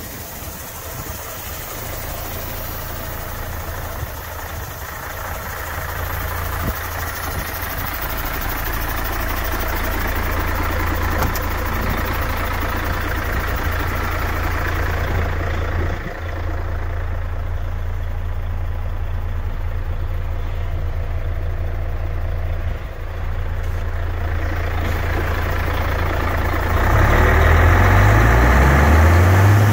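Mercedes-Benz Actros 1840 LS truck's diesel engine idling steadily, its engine speed briefly rising near the end.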